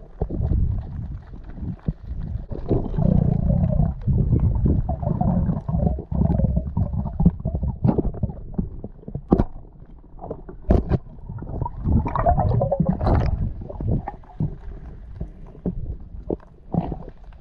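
Muffled underwater sound picked up through a waterproof camera housing: a low rush of moving water with scattered sharp clicks and knocks.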